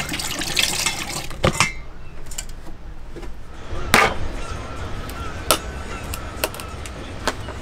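Tap water running briefly, then a kitchen knife blade striking a cooked lobster's claw to crack its thick shell: about five sharp knocks a second or more apart.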